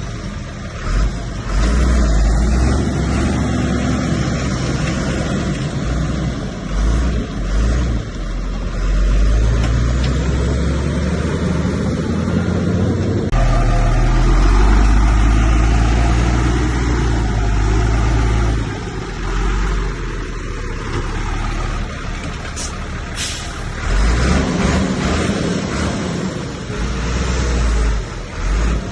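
Heavy diesel engines of earthmoving machinery (bulldozer and dump trucks) working, the engine note swelling and easing with load. There are a few short hisses about three-quarters of the way in and again at the very end.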